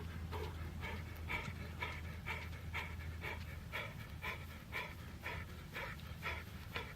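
Hard, rhythmic panting from a person working flat out through a set of speed jacks, about two breaths a second, over a low steady hum.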